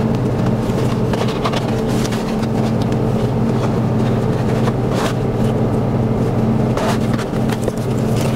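A truck's diesel engine running steadily, heard from inside the cab, with a few light knocks and rattles.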